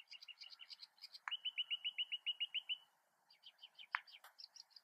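Songbirds chirping, with one bird singing a quick trill of about a dozen even notes. A single sharp click, the loudest sound, comes about four seconds in.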